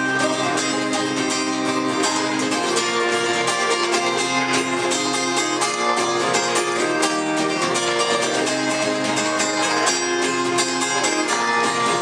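Guitar strummed in a steady rhythm, an instrumental passage of the song with no singing.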